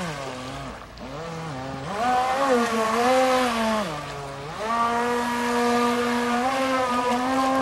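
Electric motor and water-jet drive of a small RC jet boat whining under throttle. The pitch drops as the throttle is eased right at the start, climbs back about two seconds in, dips again around four seconds, then rises to a steady high whine that holds to the end.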